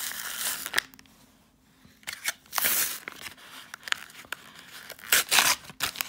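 Foil wrapper of a Pokémon card booster pack being torn open and crinkled as the cards are pulled out, in several short bursts of tearing and rustling with a near-quiet gap about a second in.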